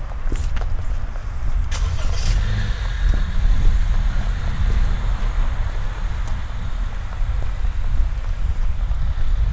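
A car driving along a wet residential street, its tyres hissing on the rain-wet pavement. The hiss sets in about two and a half seconds in and holds steady.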